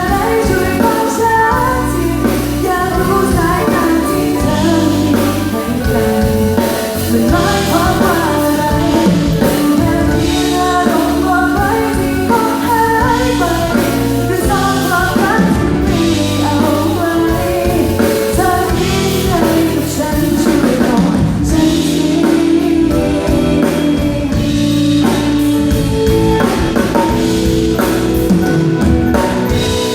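A woman singing a Thai pop song live, with band accompaniment including drums.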